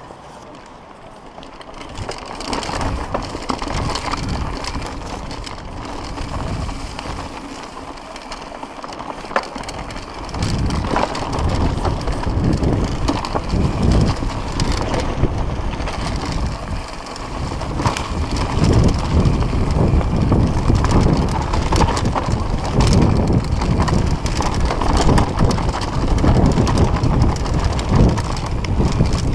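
Mountain bike riding fast down a muddy dirt trail: tyres rolling over dirt and roots with a steady rumble, and the chain and frame clattering in quick, sharp rattles over bumps. It starts quieter and grows louder as speed picks up, about ten seconds in and again near the twenty-second mark.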